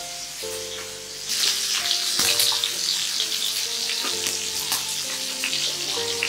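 Soft background music of held, stepping notes, joined about a second in by a steady hiss with scattered light clicks that becomes the loudest sound.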